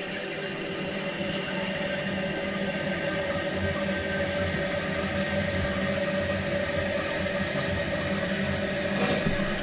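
Toilet tank refilling through a newly installed fill valve after a flush: a steady hiss of running water with a faint hum, growing slightly louder.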